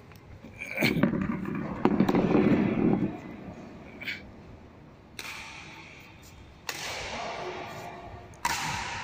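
Badminton rackets striking a shuttlecock during a doubles rally, sharp hits every second or two with a long echo in a large hall, along with players' voices.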